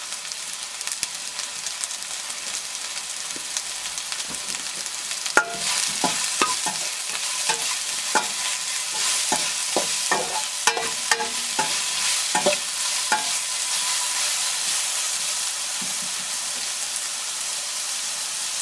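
Ridge gourd, onions and green chilies sizzling in hot mustard oil in a steel pan. From about five seconds in until about thirteen, a spatula scrapes and knocks against the pan as the vegetables are stirred.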